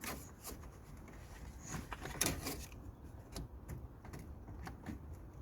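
Scattered clicks, knocks and scraping as the radiator cooling fan assembly is worked loose and pulled out of the engine bay, with one louder knock and scrape about two seconds in.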